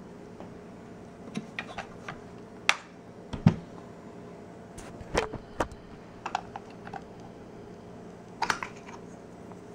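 Irregular sharp clicks and knocks of a polymer Magpul MOE pistol grip and AR-15 rifle being handled as the grip's snap-in storage cap is worked open. The loudest is a click with a dull thud about three and a half seconds in, and a cluster of clicks comes near the end, over a steady low hum.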